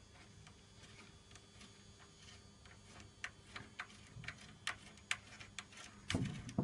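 Small metal spacer lugs clicking and tapping against a clear plastic AED cabinet back plate as they are pushed into its holes: scattered sharp clicks, few at first and coming more often after about three seconds, with a duller handling knock near the end.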